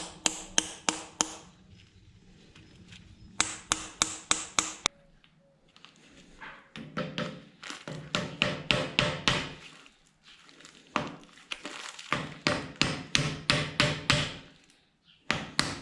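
Hammer tapping a metal bushing into the eyelet of a DNM AO42RC rear air shock, in bursts of several quick strikes a second with a slight ringing after the hits.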